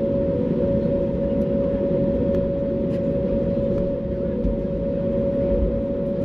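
Cabin noise of an Airbus A321neo taxiing after landing, engines at idle: a steady rumble with one constant whine above it.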